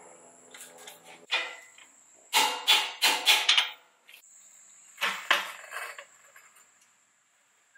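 A series of sharp metallic knocks and clanks from hand tools working on a pickup's front suspension and wheel hub, four of them in quick succession near the middle. A low steady hum fades out early on.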